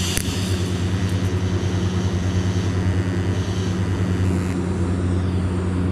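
TIG welding arc running steadily with a strong low electrical hum and a hiss above it, welding a 63 mm stainless exhaust tube onto a steel flange plate.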